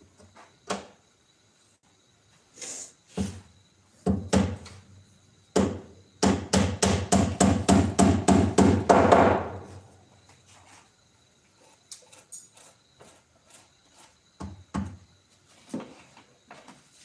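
Hammer striking wood: a few separate knocks, then a fast run of about a dozen blows at roughly four a second for some three seconds, then a few more scattered knocks.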